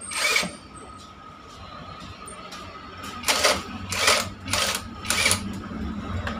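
Cordless impact wrench fired in short bursts on the engine bracket bolts: one burst near the start, then four quick ones in a row about three seconds in.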